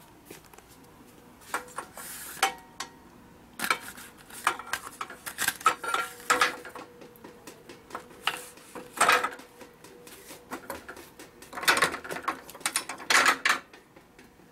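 HALDER soft-faced hammers rattling and knocking against a sheet-metal display rack as they are handled: irregular clusters of clicks and clacks, the loudest about nine seconds in and again twelve to thirteen seconds in.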